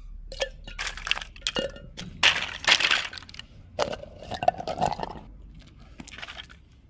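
Small plastic toys and rubber ducks clicking and clinking against the mouth of a 3-litre glass jar as they are pushed in, with a louder rattling clatter about two to three seconds in. A rubber duck squeals against the glass neck as it is forced through around four seconds in, then plastic building blocks clatter faintly as they are picked up.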